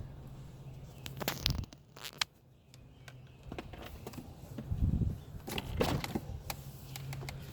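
Car engine running quietly, heard from inside the cabin as a steady low hum, with scattered clicks and knocks and a dull thump about five seconds in.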